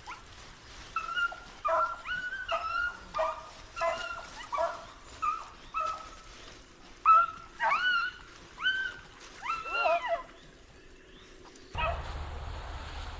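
Beagle hounds baying in a string of short, high yelping calls, roughly one or two a second, the cry of hounds following a rabbit's scent. The calls stop about ten seconds in, and a steady low rumble comes in near the end.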